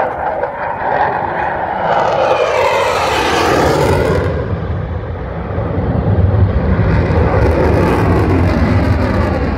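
F-16 fighter jet's single turbofan engine passing overhead. A loud jet roar rises to a hissing peak about three to four seconds in, with its pitch sliding down, then turns into a deep rumble as the jet moves away.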